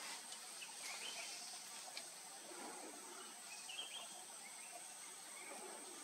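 Faint forest ambience: a steady high-pitched insect drone, with a few short, distant bird chirps now and then.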